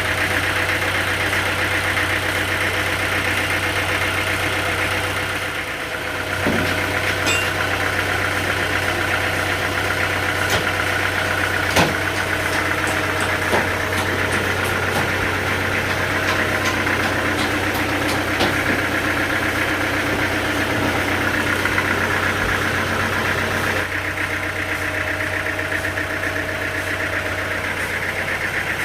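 A sawmill's engine running steadily at an even pitch, with a few sharp knocks here and there.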